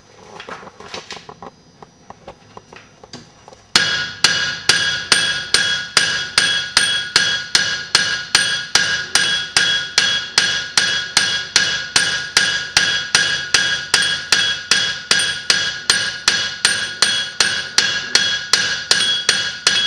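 Blacksmith's hand hammer striking a hot iron arrowhead socket on a socket stake in the anvil's hardy hole, each blow with a clear metallic ring. After a few light taps, a steady run of blows begins about four seconds in, nearly three a second. The blows are widening and thinning the flattened socket to its shape.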